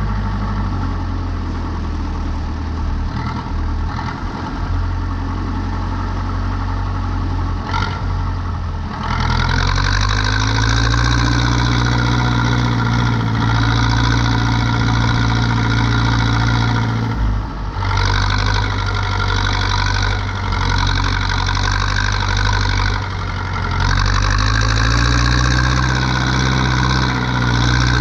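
Zetor 7245 tractor's four-cylinder diesel engine running steadily during hay turning. Its pitch and loudness step up about nine seconds in, then dip briefly twice, near the middle and again later, before picking back up.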